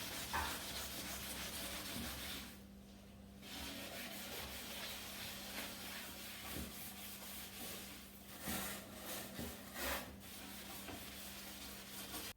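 Scrubbing: something rubbed hard back and forth over a hard surface, with a few louder strokes about two-thirds of the way through and a faint steady hum underneath.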